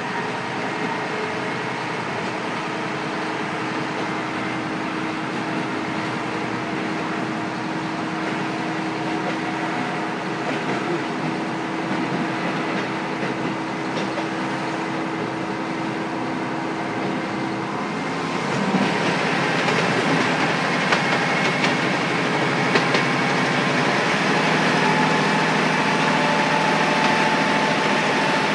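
Diesel engine of a KiHa 125 railcar, heard from inside the car directly above the engine, idling with a steady hum. About two-thirds of the way in it throttles up and gets louder as the railcar starts to move, its pitch creeping up near the end.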